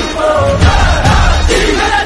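A crowd of people shouting and calling out together over a loud low rumble, with some music mixed in.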